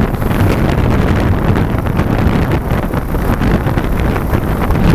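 Wind rushing and buffeting over the microphone on a moving Pulsar 150 motorcycle, a steady low rumbling noise with the bike's running underneath.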